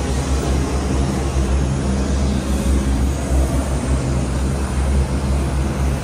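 Loud, steady rumbling noise of aircraft and ground machinery on an airport ramp, a deep drone under an even hiss, with no single event standing out. The turbofan being worked on is not running.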